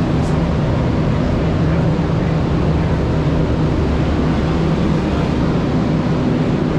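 Paint booth running: a loud, steady drone with a low hum and a hiss over it.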